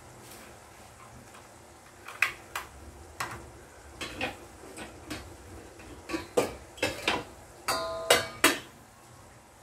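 Metal utensil clinking and knocking against a pot or dish: about a dozen sharp strikes starting about two seconds in, the last few ringing briefly.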